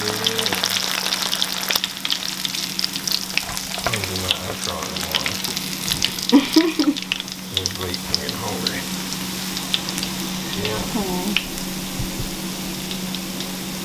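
Cornmeal-breaded bluegill fillets frying in hot oil in a skillet: a steady sizzle with dense crackling that thins out in the second half as the fish is lifted out. A low steady hum runs underneath.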